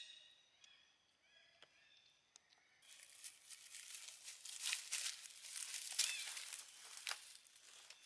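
Dry fallen leaves crackling and rustling under a long-tailed macaque as it walks and forages through the leaf litter. The crunching starts about three seconds in and is densest in the middle.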